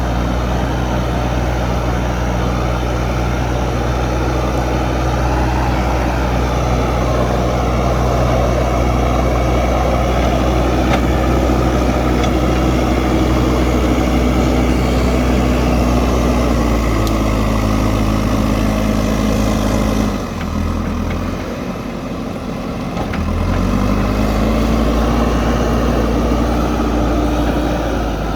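JCB backhoe loader's diesel engine running steadily under working load, its pitch shifting now and then. About twenty seconds in it drops back for a few seconds, then rises again to working speed.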